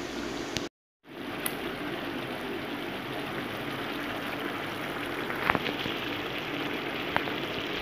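Squid adobo simmering in a wok, a steady bubbling hiss of the sauce. It cuts out briefly about a second in, and there are two light clicks in the second half.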